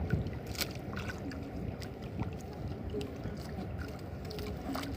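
Steady rumble of wind and water around a small fishing boat at sea, with scattered sharp knocks and clicks.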